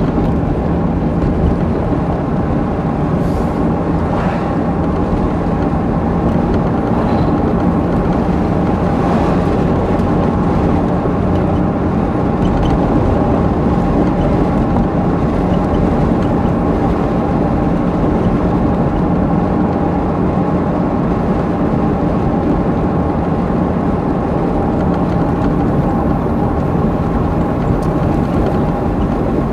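Chevrolet C5 Corvette Z06's LS6 V8 running steadily at a cruise, with road noise.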